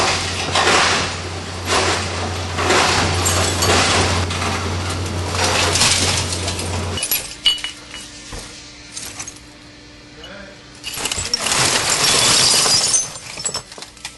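Compactor-style can and glass crusher running with a steady motor hum while its platen crushes CRT glass in the bin, giving repeated crunching and shattering. About seven seconds in, the hum cuts off suddenly; after that, broken glass clinks and rattles as the crushed load is handled, with a longer stretch of glass clattering near the end.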